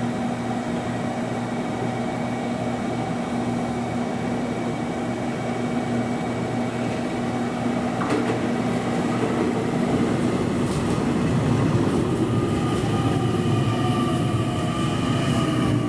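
Electric train at a station platform: a steady hum, then from about eleven seconds in a whine of several tones that slowly falls in pitch as the sound grows a little louder.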